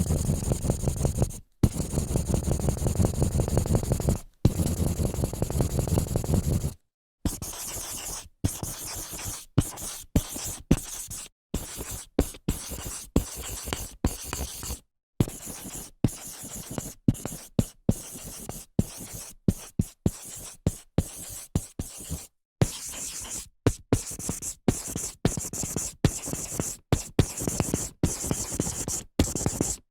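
Marker strokes on a whiteboard. The first several seconds hold dense, continuous rubbing strokes, and after that come many short separate strokes with brief gaps between them, like writing or drawing line by line.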